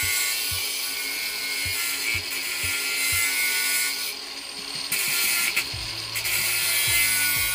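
Angle grinder with a cutting wheel running against a patio paver, cutting a corner off; the grinding eases briefly about four seconds in. Background music with a thumping beat plays underneath.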